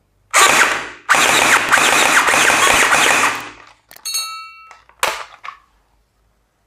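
Rapid automatic gunfire: a short burst, then a sustained rattle of about two and a half seconds. Then a brief chime of several steady tones and a single knock.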